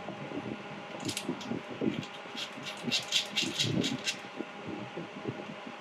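Foot switch cable connector being plugged into the laser welding machine: a run of short clicks and rattles of handling over a steady low hum.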